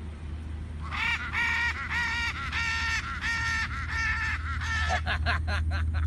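Macaws calling in flight: a run of about nine loud, harsh squawks in steady succession, then a quicker string of short chattering calls near the end.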